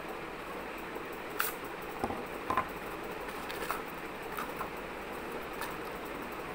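Cardboard and paper tubes handled and set down on a table: a handful of light taps and clicks scattered through, the loudest about two and a half seconds in, over a steady background hiss.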